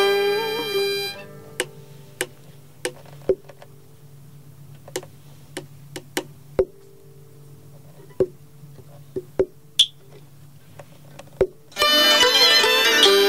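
Traditional Vietnamese đờn ca tài tử string-and-flute ensemble (moon lute, two-string fiddle, pear-shaped lute, bamboo flute, zither). The ensemble falls away about a second in, leaving about ten seconds of sparse, irregular sharp clicks and single short plucked notes. The full ensemble comes back in near the end.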